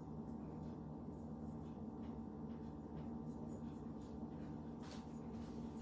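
Steady low electrical hum of room tone, with faint scattered clicks and rustles that become more frequent in the second half.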